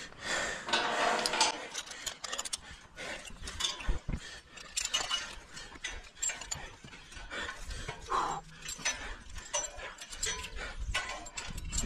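A tower climber breathing hard, with scattered clinks and knocks of hands and clip hardware on a galvanized steel lattice tower.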